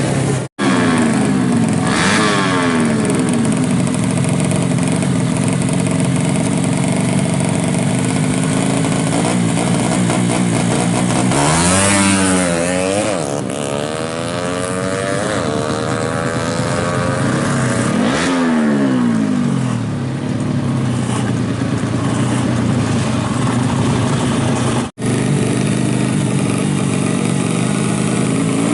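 Honda Astrea C-series drag bike engine running through a rusty exhaust. Its pitch sweeps down and back up twice, and the sound cuts out for an instant twice.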